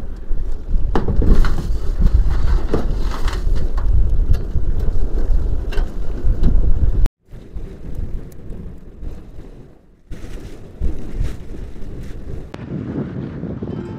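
Wind buffeting the microphone in loud low rumbling gusts, which cut off abruptly about seven seconds in; softer gusts of wind follow.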